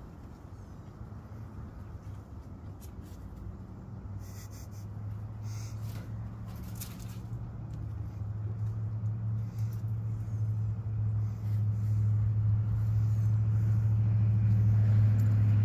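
A motor's low, steady hum, holding one pitch and growing gradually louder from about four seconds in, with a few faint clicks and rustles in the first half.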